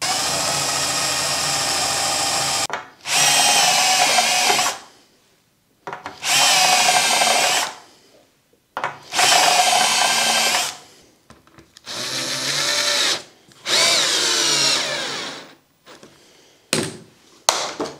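Cordless drill drilling holes through an aluminium saw guide rail. It runs steadily at first, then in about five more short runs of one to two seconds, the motor pitch rising and falling with the trigger, with a few brief blips near the end.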